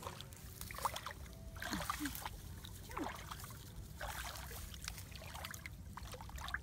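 Light, irregular splashing and trickling of shallow muddy water as hands grope about under the surface feeling for fish.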